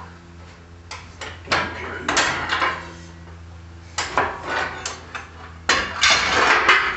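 Steel high-lift jack being worked to let the load down, its handle and climbing pins clanking metal on metal in irregular bunches of sharp clacks.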